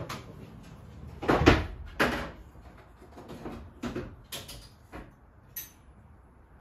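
Sockets and hand tools being rummaged through in a tool drawer or tray while hunting for the right size: a string of knocks and metal clinks, the loudest about a second and a half in.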